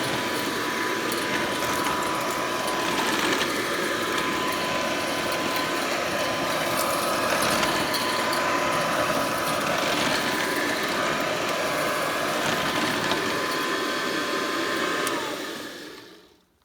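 Late-1930s Hoover Model 25 upright vacuum cleaner running steadily, its motor giving a steady whine and its belt-driven brush roll turning quietly. About fifteen seconds in it is switched off and winds down to silence.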